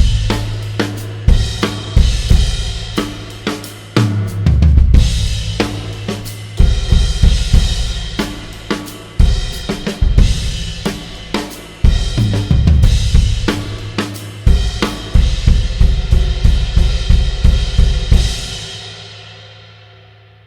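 Drum kit groove with bass drum, snare and Pergamon Blacksmith and Obsidian series Turkish cymbals (hi-hat, ride and crashes). The playing stops about 18 seconds in and the cymbals ring and fade out.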